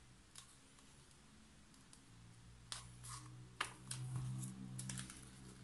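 Faint clicks and light knocks of plastic paint cups and a wooden stirring stick being handled and set down on a table, mostly in a run of sharp clicks over the second half, over a low steady hum.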